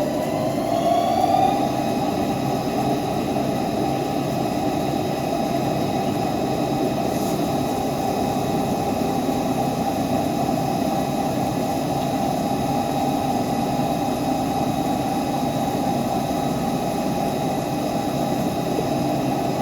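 CNC lathe running a pinion job: the spindle drive's whine climbs in pitch over the first second or so as it comes up to speed. It then holds a steady, loud machine whine and hum, and starts to wind down at the very end.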